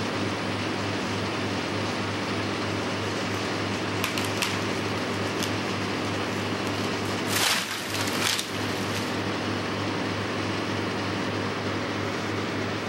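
Engine running steadily at constant speed, with a brief louder noisy burst lasting about a second, roughly seven and a half seconds in.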